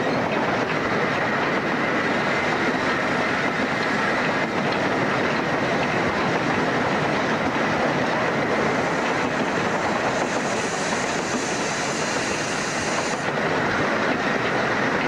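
LNER A3 Pacific steam locomotive Flying Scotsman running at speed, heard from its footplate: a steady, dense noise of the engine and its wheels on the rails. A higher hiss joins in about nine seconds in and cuts off suddenly about four seconds later.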